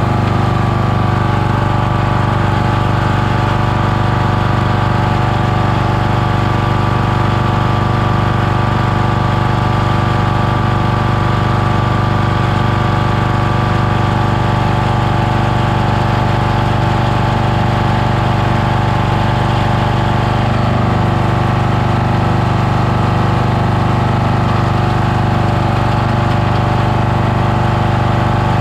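Kohler engine of a Toro LX460 lawn tractor running steadily, driving the belt and pulleys of its variable-speed transmission, with a slight change in tone about two-thirds of the way through.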